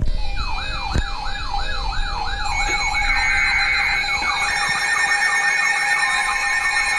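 Electronic siren alert tones from weather-alert devices going off for a new severe thunderstorm warning. A rapid rising-and-falling yelp, about three and a half sweeps a second, is joined about two and a half seconds in by further overlapping siren sweeps and steady alarm tones.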